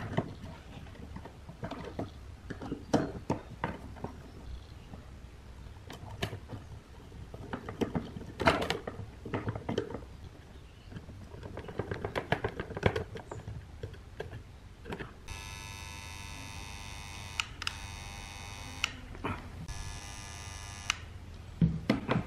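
Small clicks, taps and knocks of a soldering iron, wires and fingers against a metal panel and potentiometer lugs during hand soldering, over a low steady hum. In the last third a steady buzzing tone starts and stops three times.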